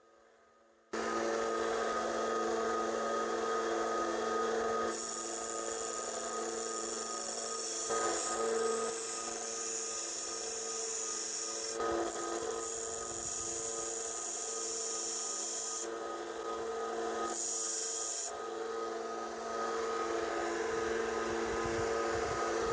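Electric grinder running, starting about a second in with a steady motor hum, and a high grinding hiss in several long stretches as knife steel is pressed to it. The steel is being ground back to form new points on broken kitchen-knife tips.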